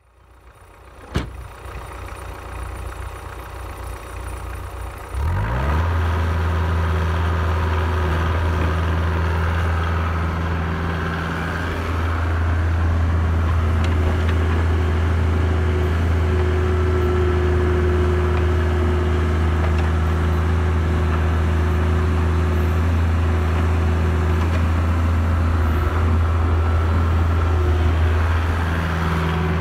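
Caterpillar 304C CR mini excavator's diesel engine running steadily as the machine crawls over a dirt mound. The first few seconds are quieter, with one click about a second in, before the engine sound comes in loud at about five seconds.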